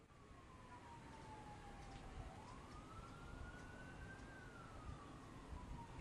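Faint emergency-vehicle siren wailing: a single tone slowly falls, rises about two seconds in, and falls again, over a low rumble.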